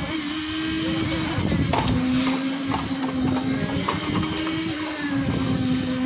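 Concrete mixer machine's engine running steadily with its drum turning, with a few short scrapes and clanks of shovels and metal pans of wet concrete.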